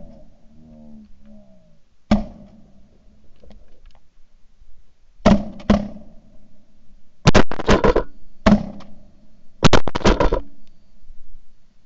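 Shotguns firing during a duck hunt: about ten sharp blasts, a single shot about two seconds in, then a pair, then quick bursts of two or three shots close together, each with a short fading echo.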